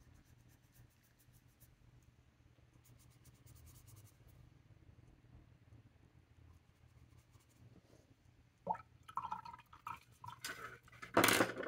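Faint scratching of a paintbrush on a paper swatch card. About two-thirds through, the brush clinks and swishes in a glass jar of rinse water, and near the end a paper towel rustles loudly.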